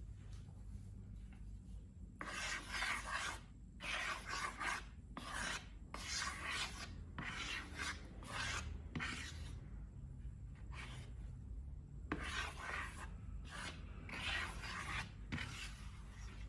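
Rasping rubbing strokes, about a dozen short, irregular strokes starting about two seconds in.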